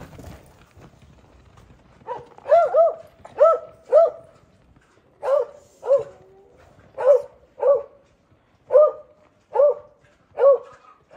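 A dog barking repeatedly, about a dozen short barks starting about two seconds in.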